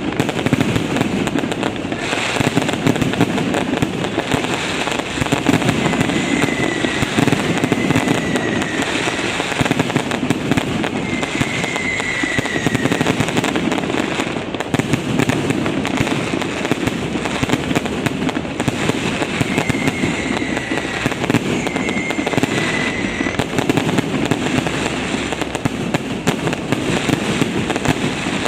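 Fireworks going off in a continuous barrage of bangs and crackles, with a few short whistles now and then.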